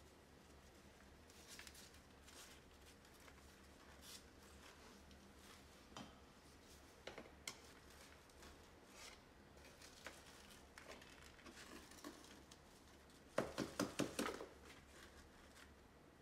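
Quiet handling sounds of repotting: gloved hands and a small trowel scraping and shifting chunky potting mix around a plastic pot, with scattered faint clicks. Near the end comes a quick run of about six taps, the loudest sound.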